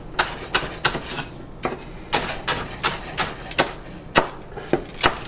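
Chef's knife chopping red onion on a wooden cutting board: a run of sharp, uneven knocks, about two or three a second.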